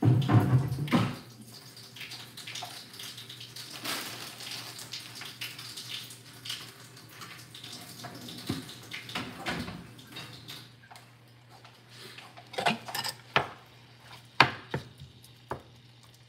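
Dishes, pots and utensils clattering at a kitchen sink, loudest right at the start, with a tap running through the middle and a few sharp knocks later on. A steady low hum lies underneath.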